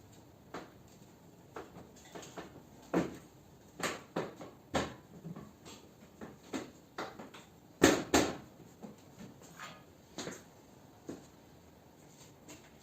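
Irregular knocks, clicks and light clatter of car body parts being handled and fitted, as when a front bumper is offered up to the car; the two loudest knocks come close together about eight seconds in.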